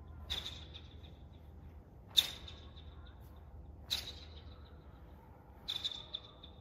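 Sharp snaps of a cotton Taekwon-Do uniform (dobok) as the performer whips out strikes and blocks of a pattern, each with a short high ring. One comes about every two seconds, the loudest about two seconds in, with a quick run of three near the end.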